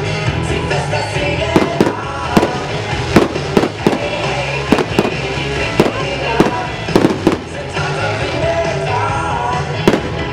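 Fireworks bursting, a rapid series of sharp bangs, over loud show music played through loudspeakers.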